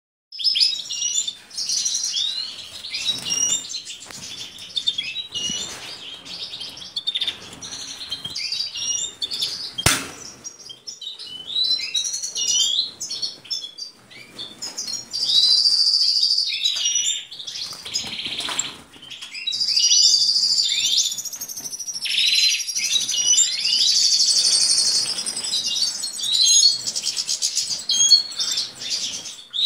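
Caged European goldfinches singing and twittering, dense quick chirps with longer song passages in the second half. A single sharp click about ten seconds in.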